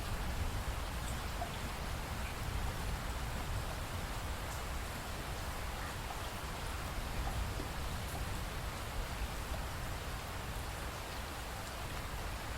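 Steady rainfall, an even hiss with a few scattered drops ticking.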